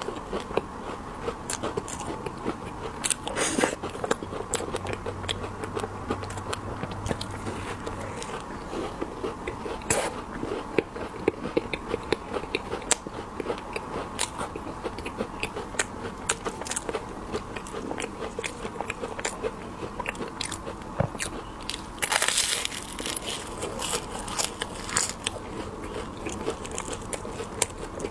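Close-miked biting and chewing of candied haws (hawthorn berries in a hard sugar shell), with many sharp crackles as the glassy candy coating breaks. There is a louder burst of crunching about three-quarters of the way through.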